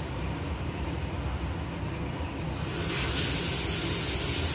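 Steady low kitchen rumble. About two and a half seconds in, a loud spraying hiss starts suddenly and cuts off near the end.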